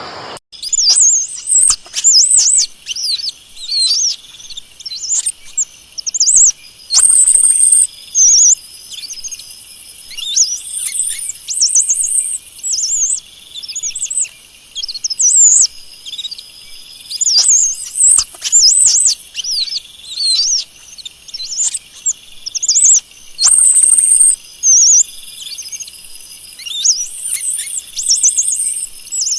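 Monkeys giving rapid, high-pitched chirping and twittering calls in repeated bursts, with a few longer steady whistles.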